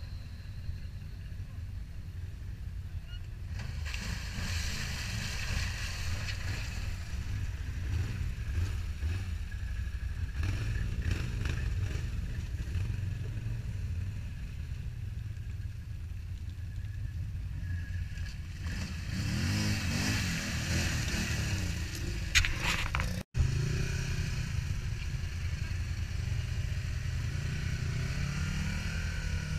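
Off-road quad bike engines running and revving as the machines climb a muddy bank, over a steady low rumble. The revs rise and fall about two-thirds of the way through and again near the end, and the sound cuts out for an instant between them.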